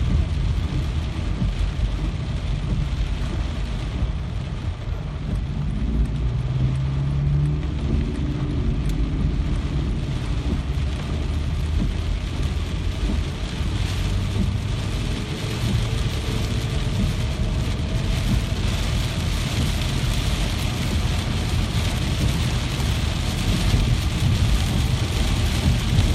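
Steady rain falling, with a strong low rumble under the hiss. A brief low hum comes through about six to eight seconds in, and the hiss grows a little brighter from about halfway.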